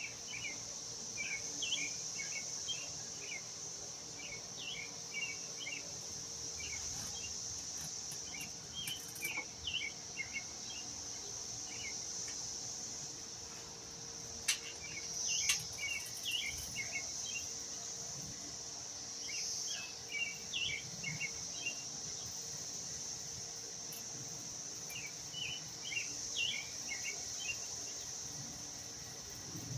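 Steady high-pitched drone of insects, with a songbird repeating short chirpy phrases every few seconds and one sharp click about halfway through.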